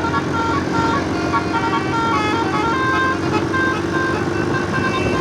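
Basuri telolet horn playing a quick melody of short, stepping tooting notes over a steady lower tone and vehicle noise.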